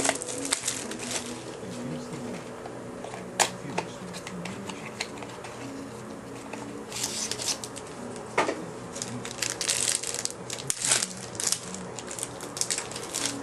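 A baseball card pack being opened: the wrapper crinkling and tearing, then the cards being handled and slid against each other, in irregular crackling rustles that grow busier in the second half.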